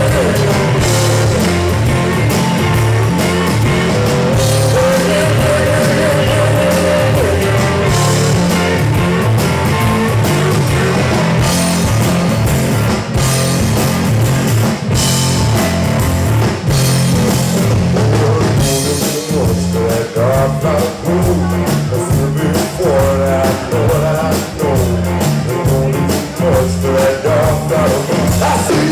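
Blues-rock trio playing live: electric guitar over bass guitar and drums, loud and continuous.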